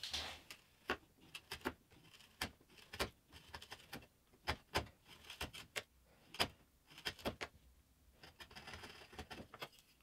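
A chisel and pine workpieces handled on a wooden bench: an irregular scatter of sharp light clicks and knocks, then a soft scraping shave near the end as the chisel pares across the bottom of a notch.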